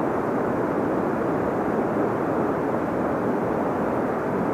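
Steady rush of flowing river current, an even noise with no let-up.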